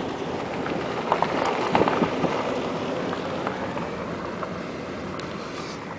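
Steady noise of a vehicle on the move with wind on the microphone, with a few small knocks and ticks between one and two seconds in, easing off slightly towards the end.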